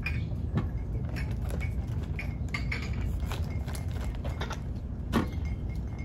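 A utensil clinking and scraping against a stainless steel mixing bowl while ingredients are stirred: irregular light clinks, the loudest about five seconds in.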